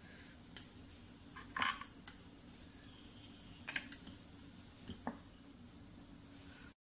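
Metal knife and fork clicking and scraping against a glass baking dish while cutting and lifting out a piece of brownie: a few short clicks and scrapes, the loudest about a second and a half in, over a low steady hum. The sound cuts off abruptly near the end.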